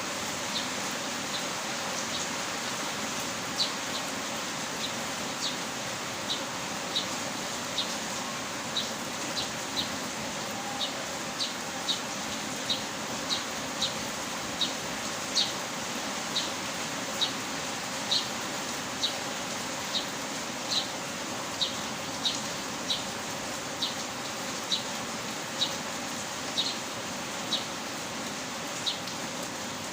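Heavy rain falling as a steady hiss, with short, high chirps or ticks repeating roughly one to two times a second throughout.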